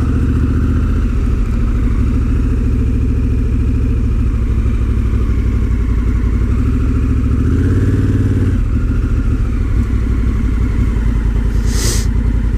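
Honda CRF1000L Africa Twin's parallel-twin engine running steadily under way, the revs rising briefly about eight seconds in and then settling back. A short hiss comes near the end.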